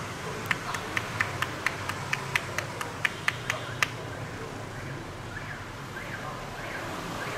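Massage hand percussion on the head: a quick, even run of about fifteen sharp taps, about four or five a second, stopping about four seconds in, over a steady low background hum.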